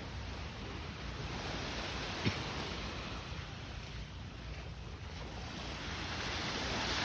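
Sea waves washing onto the shore, a steady rush that swells louder toward the end, with wind on the microphone. There is a single short tap a little over two seconds in.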